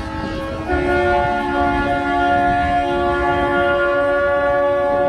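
Many boats' horns sounding together in long, steady blasts that overlap into a chord, the salute that closes the boat show. More horns join a little under a second in, and the sound gets louder.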